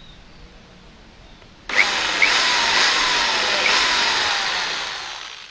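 Corded electric drill boring a hole into wood through a screw hole in a metal drawer slide. The motor starts suddenly a little under two seconds in, its pitch sagging slightly as the bit bites, and winds down near the end.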